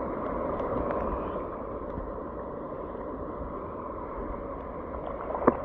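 Steady rush of river water, with a few faint ticks of lapping or droplets.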